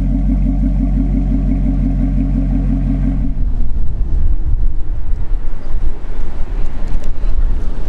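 Maserati GranTurismo MC Stradale's naturally aspirated V8 idling steadily at the exhaust tip. About three seconds in it gives way to a louder, uneven low rumble.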